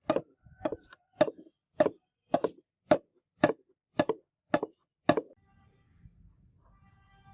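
Ten sharp knocks in a steady rhythm, about two a second, some with a small rebound hit, stopping about five seconds in.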